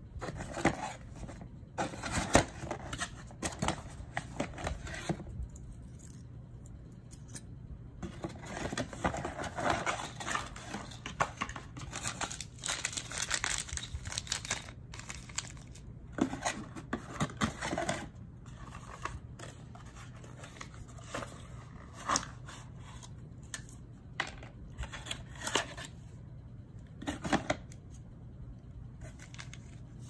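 Handling noise from the parts of an electronic deadbolt lock kit: a plastic parts bag rustling and small metal screws, keys and latch pieces clinking, in irregular bursts with pauses between.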